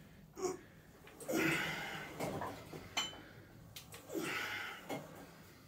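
A man breathing out heavily twice, each a long, hissy exhalation that fades away, about a second in and again about four seconds in, with a short click in between.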